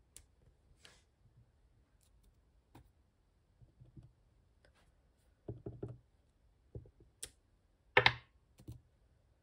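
Clear acrylic stamp blocks being inked on ink pads, pressed onto cardstock and set down on a craft mat: scattered light clicks and knocks, with a quick cluster about halfway through and the loudest knock near the end.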